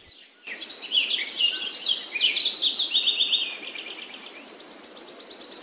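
Birds chirping in many quick, high, falling chirps that overlap. About halfway through the chirps fade and a fast, high insect trill takes over.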